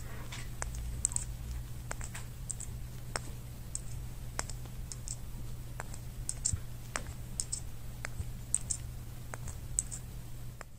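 Light, irregular clicks and ticks, roughly two or three a second, over a low steady hum.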